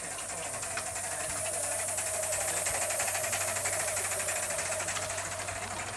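O gauge live steam model of an LNER Q6 0-8-0 running, with very rapid, even exhaust beats and a steam hiss. It gets louder to a peak about three seconds in, then eases.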